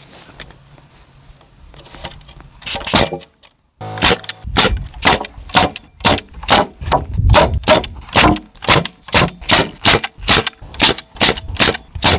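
Pneumatic framing nailer firing nails into cedar framing lumber, a couple of shots about three seconds in, then a quick, even run of shots about three a second.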